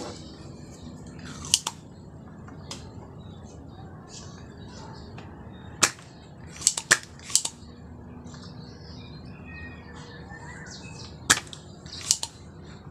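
Spring-loaded desoldering pump firing with sharp snaps while a bulged electrolytic capacitor is desoldered from a monitor's power-supply board. There is one snap a little over a second in, a quick cluster of four in the middle, and two near the end.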